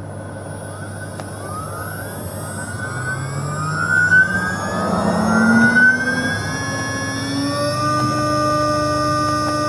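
2.2 kW liquid-cooled CNC router spindle spinning up free with no cutter fitted: a whine of several tones that rises in pitch and gets louder from about two seconds in.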